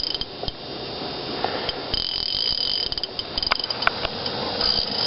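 Fishing reel clicking in rapid runs that start and stop, with a few sharp ticks, while a large fish is fought on light 4-pound line.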